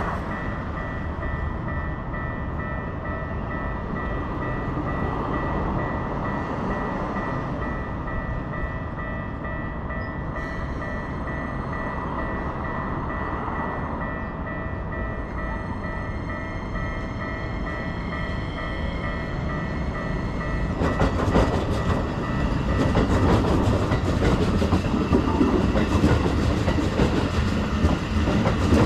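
Keikyu train passing over a level crossing, its wheels clattering loudly from about two-thirds of the way in. Before that, a steady ringing crossing warning bell sounds over the rumble of the train.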